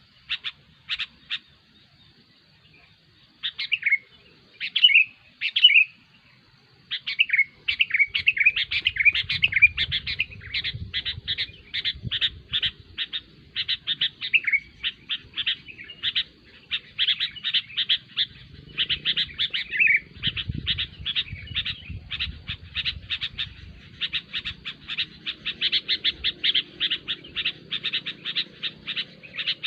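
Sooty-headed bulbuls calling noisily: rapid, chattering strings of short bubbly notes with a few slurred whistles mixed in. They pause briefly near the start and grow busier after several seconds.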